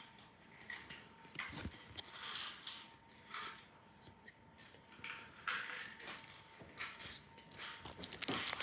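Irregular rustling and handling of hockey cards and their foil pack wrappers, with a sharper burst of crinkling near the end.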